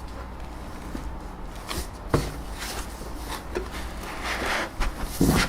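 Printer parts and packaging being handled: scattered light knocks and clicks, the sharpest about two seconds in, with bursts of rustling in the second half, over a low steady hum.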